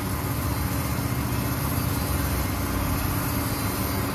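Crankshaft grinding machine running steadily, its grinding wheel regrinding a tractor crankshaft journal under a coolant spray: a steady machine hum with the hiss of grinding.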